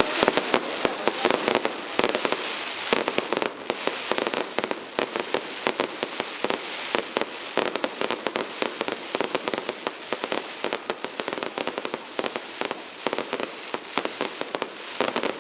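Fireworks going off in a dense barrage: many sharp bangs and crackles in rapid succession.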